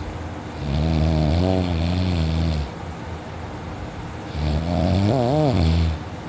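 A person snoring heavily in deep sleep while lying on their back. There are two long, loud snores of about two seconds each, one about half a second in and the next about four seconds in; the second wavers in pitch near its end. A low steady hum sounds between them.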